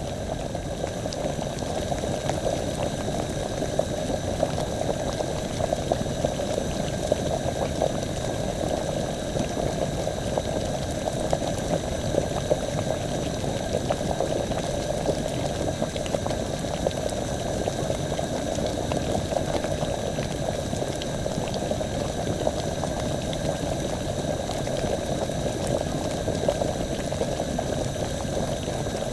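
Liquid bubbling steadily at a boil, a dense, even crackle of small pops.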